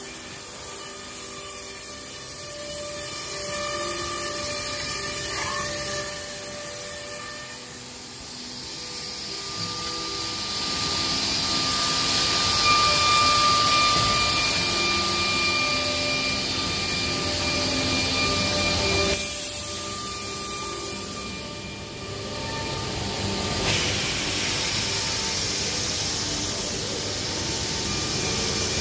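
Nanxing NB7X automatic edge banding machine running: a steady motor whine with several held tones, and stretches of louder hiss as the panel passes through the cutting and finishing units that trim its edge band.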